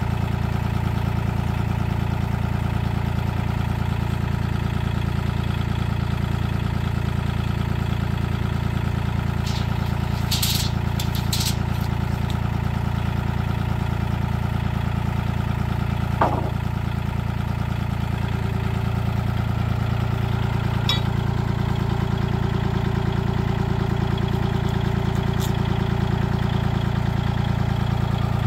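Kubota L2501 compact tractor's three-cylinder diesel engine idling steadily, with a few sharp clicks and one knock over it.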